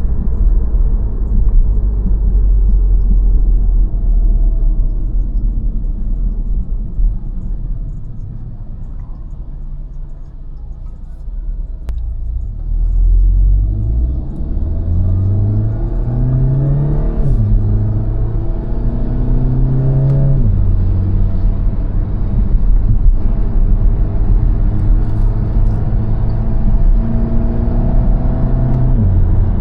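2015 Volkswagen GTI's turbocharged 2.0-litre four-cylinder, Stage 1 tuned with an open intake, pulling under acceleration. After a stretch of low running it revs up about halfway through, with two quick drops in pitch at the upshifts, then holds a steady drone at cruise and eases off near the end.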